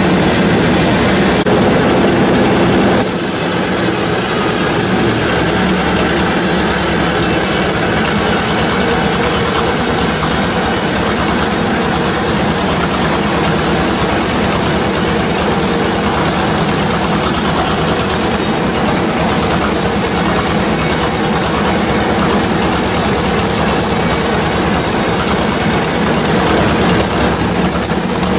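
Powered sawmill saw running and cutting through a hard, chalk-laden teak log: a loud, steady mechanical din that changes character about three seconds in.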